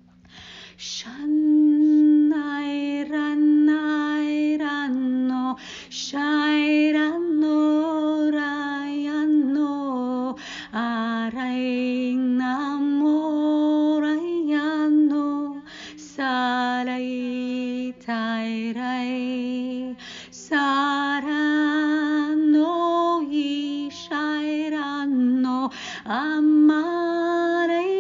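A solo female voice singing long, wordless tones that glide slowly between pitches, in phrases of a few seconds with short breaks for breath. A faint steady low hum lies underneath.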